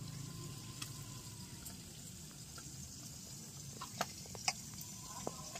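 Quiet background hiss with a few small clicks in the second half as boiled taro corms are peeled by hand over a plastic basket.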